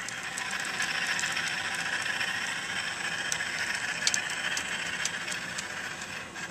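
Model steam locomotive running slowly on the layout track: a steady hiss with scattered light clicks.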